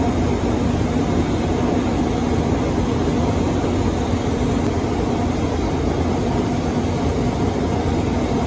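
Steady, loud running noise of heavy machinery, with a constant low hum and no distinct knocks or clanks.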